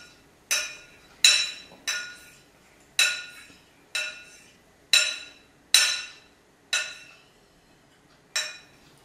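A small ringing object struck about ten times at an uneven pace, roughly once a second, each clink ringing with the same clear bell-like tone and dying away quickly.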